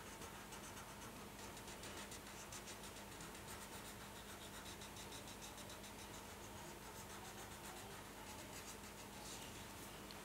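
Marker tip scribbling on paper in quick short strokes, several a second, faint.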